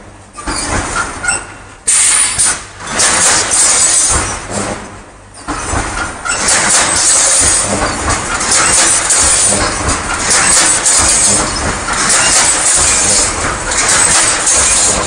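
Automatic welded wire mesh machine running: a dense clatter of mechanical knocks over a hissing noise from the welding line. It is quieter for the first two seconds, with a brief lull about five seconds in.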